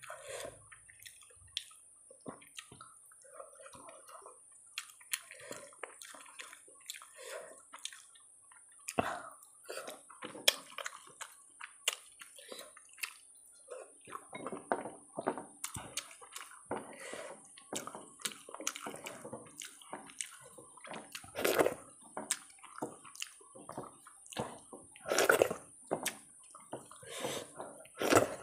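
Wet squelching and sloshing of fingers mixing rice with thin curry on a metal plate, with many short close-up smacks and clicks of eating by hand. The sounds grow denser and louder about halfway through.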